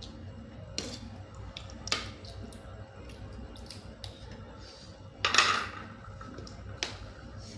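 Shells of boiled blood cockles being pried open by hand, giving sharp clicks and clacks of shell. A louder, longer scraping crack comes about five seconds in.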